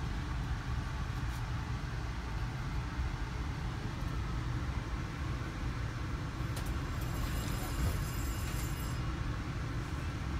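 Steady low rumble inside an Amtrak Northeast Regional passenger car standing at a station platform, with a faint high whine from about six and a half to nine seconds in.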